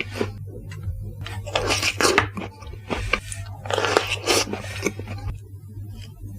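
Close-miked eating of chocolate cake: utensil scrapes and moist, squishy mouthfuls, coming in two main bursts about two seconds apart over a low steady hum.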